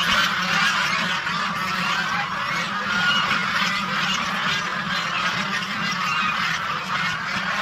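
A large flock of domestic geese honking and calling continuously, many overlapping voices at once.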